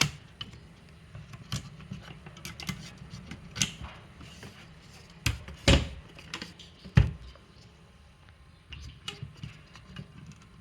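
Handling noise from pre-cut wooden birdhouse pieces as rubber bands are stretched over them: scattered light clicks and taps, with two sharper knocks in the middle.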